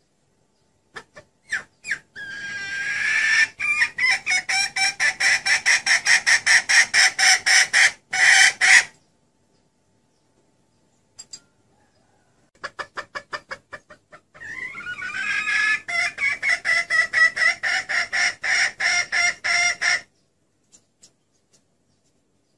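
Female red junglefowl calling: two long runs of rapid clucks, about five a second, each beginning with a few scattered notes before settling into the fast series. It is a hen's call, used as a lure to draw in wild cocks.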